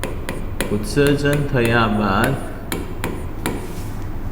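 A run of sharp, irregularly spaced knocks or taps, a few a second, with a man's voice speaking briefly near the middle.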